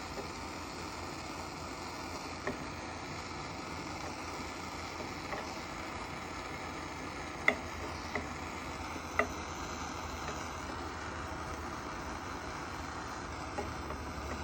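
A few light clicks and taps of a metal tool on a plastic golf cart cover as a plastic weld is worked and smoothed, the loudest about halfway through, over a steady hiss.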